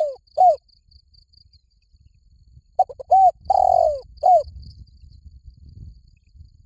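Spotted dove cooing: a phrase of short coos, a long falling coo and a last short coo. One phrase ends just as the sound begins and a full phrase comes about three seconds in. A faint high insect trill runs underneath.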